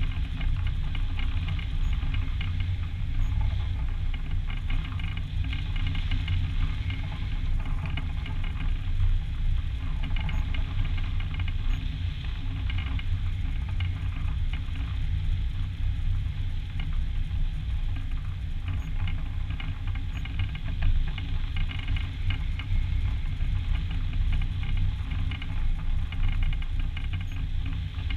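Wind rushing over an action camera mounted on a hang glider's wing in flight: a steady low rumble of wind on the microphone, with a fainter flickering hiss above it.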